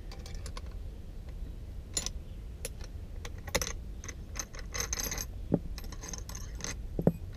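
Scattered metal clicks and clinks of a spanner working loose the long 10 mm through-bolts on a Lofrans windlass motor's end cap, with a few short scraping rasps as a bolt is turned out.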